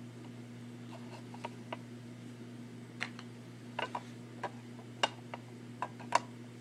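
Trading cards being handled and stacked: scattered light clicks and taps, a few sharper ones in the second half, over a steady low hum.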